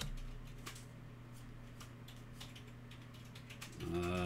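Trading cards being thumbed off a stack one at a time, giving light, scattered clicks and rustles over a faint steady hum.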